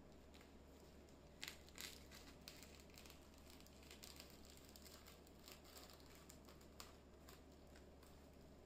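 Faint crinkling and tearing of a plastic poly mailer bag as it is slit open with a small blade, with two louder crackles about a second and a half in.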